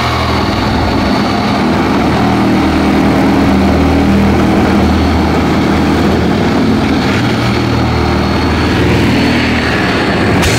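Corded Chicago Electric reciprocating saw running steadily as its blade cuts through the plastic wall of a chemical tote.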